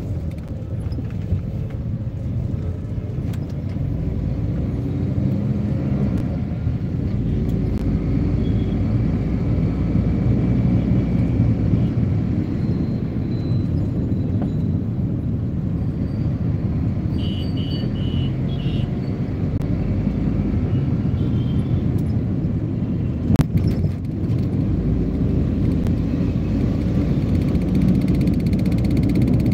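Steady rumble of engine and road noise heard from inside a moving vehicle, with one sharp knock about twenty-three seconds in.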